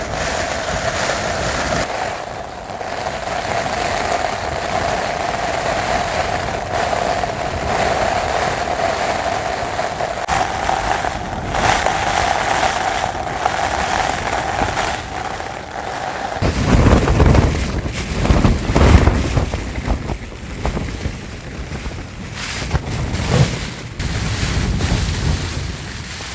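Storm wind rushing steadily, with a steady hum held over it that cuts off suddenly about two-thirds of the way through; after that, strong gusts buffet the microphone in heavy low rumbles.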